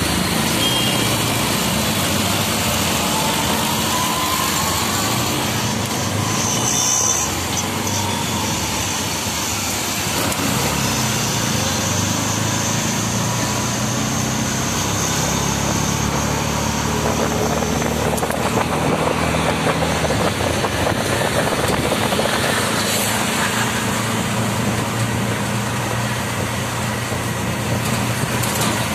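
An auto rickshaw's small engine running on the move, heard from inside the open-sided cab over wind, road and traffic noise; the engine note shifts up and down as it changes speed.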